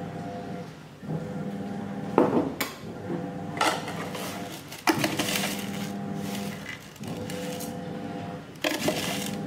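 Metal spoon clinking against a pan as spices are tipped in, several sharp clinks, the loudest about two seconds in, near the middle and near the end.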